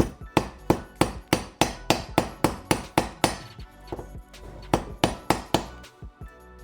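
Repeated hammer blows on a bent metal lock ring to flatten it out, about three strikes a second, with a short pause about four seconds in.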